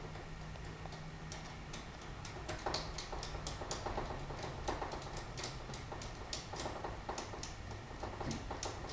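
A run of irregular clicks and taps from hand work on a door lock being fitted, a few each second, starting about a second and a half in.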